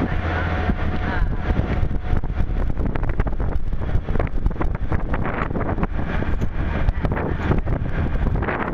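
Wind buffeting the microphone of a moving vehicle, over a steady low rumble of the vehicle running on the road.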